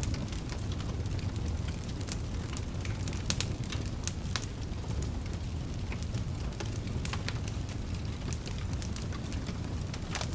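Wood fire crackling, with irregular sharp pops and snaps over a low, steady rumble of the flames.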